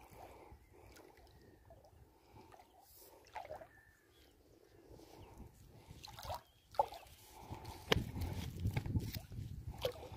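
Faint water sloshing and splashing from a hooked fish being played in shallow water, with scattered small clicks; the splashing grows louder near the end as the fish reaches the surface.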